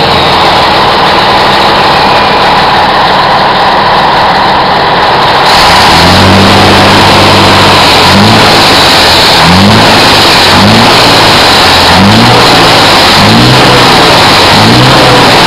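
Scania 113H truck's 11-litre inline-six diesel idling steadily for about five seconds. Then it is revved in a series of quick throttle blips, the pitch rising and falling back about once a second.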